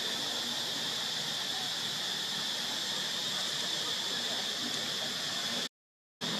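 Steady, high-pitched drone of a forest insect chorus, even in level, cutting out to silence for about half a second near the end.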